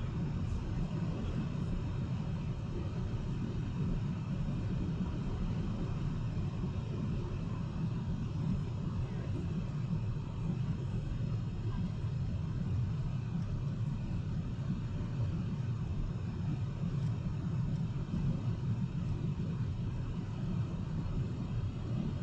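Boeing 777-300ER cabin noise in flight: a steady low rumble of engines and airflow that does not change.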